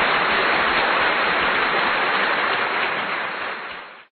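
Audience applauding, a dense even clatter of clapping that fades slightly toward the end and cuts off abruptly about four seconds in.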